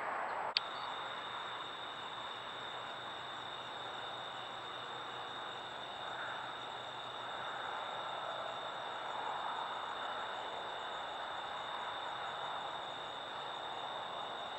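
Steady chorus of night insects, a continuous high-pitched trill over a light hiss, beginning right after a short click about half a second in.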